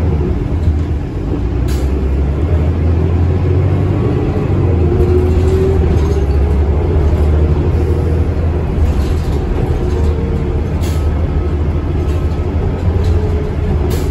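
Inside a New Flyer D40LF diesel city bus under way: a steady low engine and road drone with a faint whine that rises and falls as the bus changes speed. A few brief sharp clicks or rattles sound now and then.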